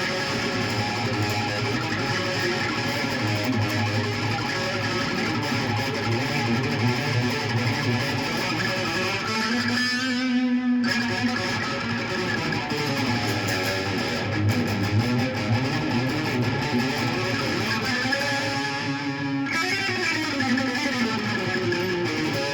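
A stringed instrument played solo in practice, notes running on continuously with some sliding pitches, while the player works on harmonics.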